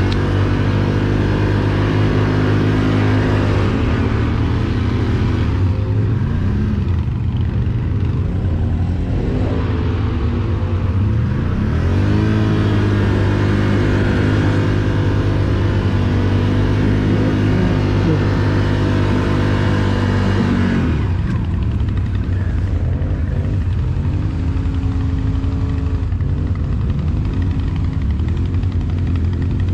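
ATV engine running under way, its revs rising and falling several times and dropping back to a lower, steadier note about two-thirds of the way through.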